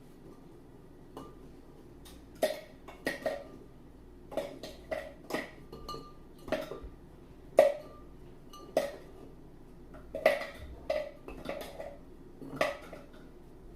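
Oreo cookies being handled and set into a food processor bowl: a string of more than a dozen light, irregularly spaced clicks and knocks.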